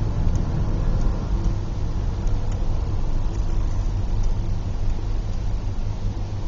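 Airbus A380 jet engines running at takeoff power: a loud, steady, deep rumble with no change in pitch.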